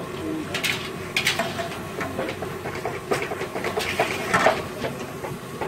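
Irregular clattering and knocking, several sharp hits a second in uneven clusters, over a steady background noise.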